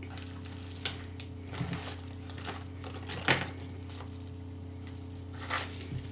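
A few scattered clicks and rustles of small fingerboard parts and packaging being handled, the loudest a sharp click about three seconds in, over a steady electrical hum.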